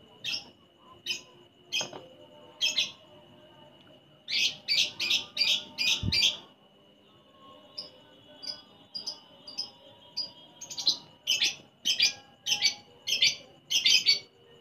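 Lovebird calling with sharp, high chirps, some spaced out and some in quick runs of five or six, with softer short chirps in between.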